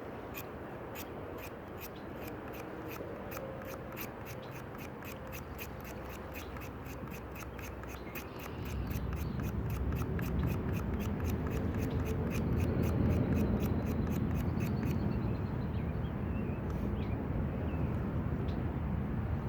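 Wooden spindle of a hand drill fire set being spun back and forth between the palms against a hearth board, giving a steady train of dry clicks, about three a second, that stops about fifteen seconds in. A low rumbling noise grows louder about eight seconds in.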